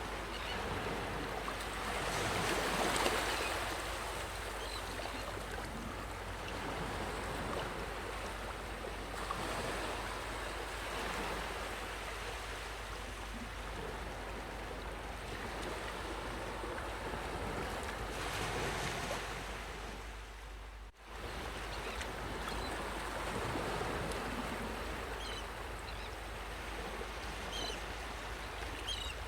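Ocean waves washing onto a beach, a steady surf hiss that swells and ebbs as each wave comes in, with a brief sudden drop in the sound about two-thirds of the way through.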